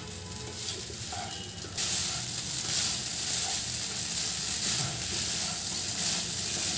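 Masala-coated rice sizzling in a hot non-stick kadai while being tossed and mixed by hand: a steady hiss that gets abruptly louder about two seconds in.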